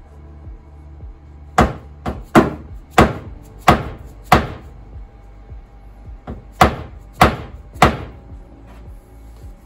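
Hammer blows on a block held against a car's rolled fender lip, knocking the edge back out: a run of about six sharp strikes, a pause, then three or four more, each with a short ring.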